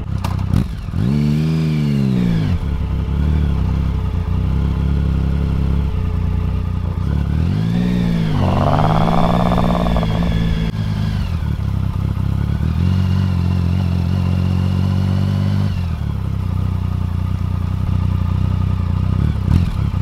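Triumph Speed Triple's three-cylinder engine running at low road speed. Its pitch rises and falls twice, about a second in and again near the middle, with steady running in between.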